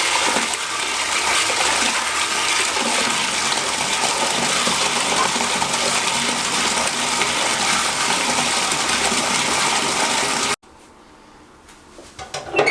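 Water running hard from a bathtub tap into a bucket as it fills, a steady gushing that stops suddenly near the end, followed by a few light knocks.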